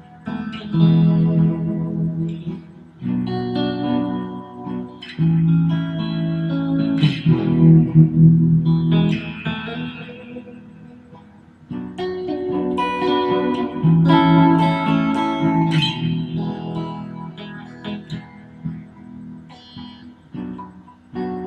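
Electric guitar played clean: chords struck and left to ring out, in slow phrases with short pauses between them.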